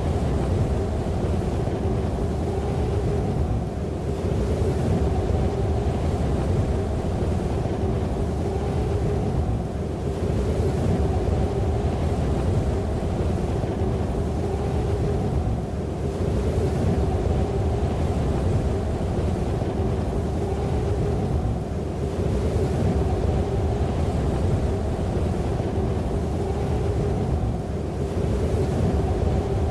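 Steady, loud low drone with held tones, swelling and easing about every six seconds, like a soundtrack drone bed.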